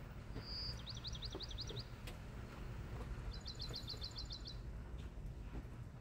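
Songbird singing outdoors: a short high whistle and a quick run of zigzag notes about a second in, then a fast even trill of about ten notes a couple of seconds later, over a steady low background noise.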